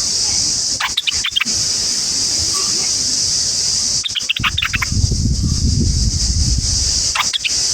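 Steady, high-pitched insect drone throughout, with short bursts of bird chirps about a second in, about four seconds in and near the end. A low rumble comes in the middle.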